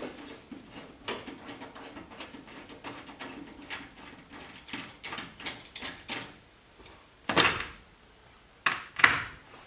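Tools working on the door handle of a 1971 Chevy C20 pickup as it is taken off: a run of small clicks and taps, then two louder clunks near the end.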